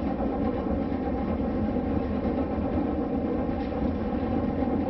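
Sakamoto funicular cable car running uphill on its rails, a steady rolling rumble heard from inside the cabin.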